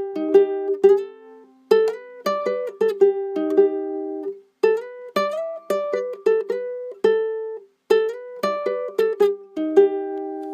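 Instrumental melody picked on a plucked string instrument, in short phrases of quick notes with brief pauses between them, ending on notes left ringing.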